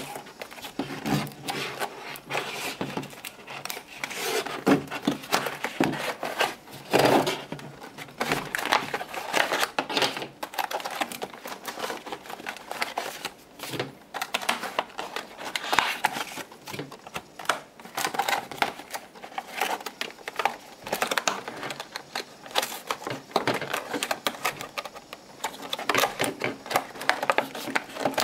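Retail packaging of a graphing calculator being unpacked by hand: cardboard, paper and plastic rustling and crinkling, with many irregular clicks and taps as the contents are pulled out and set down.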